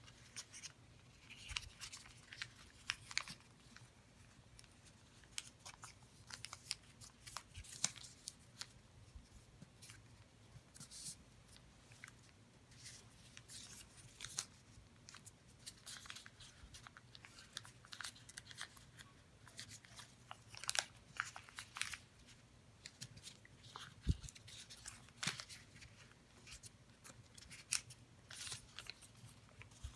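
A sheet of origami paper being folded and creased by hand: irregular crisp rustles and crinkles as the layers are pressed and flattened, with one duller knock about two-thirds of the way through.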